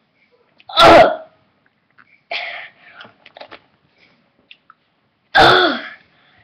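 A boy's short, loud vocal outbursts: two strong ones about four and a half seconds apart, with a fainter one between. He is reacting to the sourness of a Warheads sour candy in his mouth.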